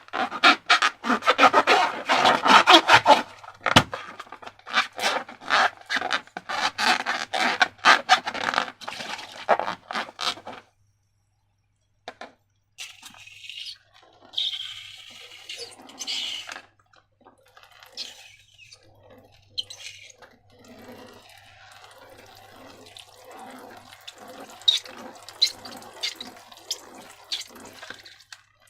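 Sticky slime being squished and mixed, with dense rapid crackling and popping for about the first ten seconds. After a short break it turns to slower, quieter wet squelches and clicks.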